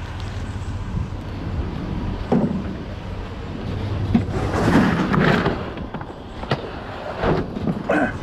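Steady low rumble of an idling engine, with a handful of separate clunks and knocks and a longer clatter about five seconds in, as gear is thrown into a welded aluminum boat.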